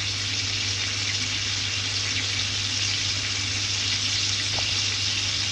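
Chicken wings frying in bubbling oil in a cast-iron skillet: a steady, even sizzling hiss, with a low hum underneath.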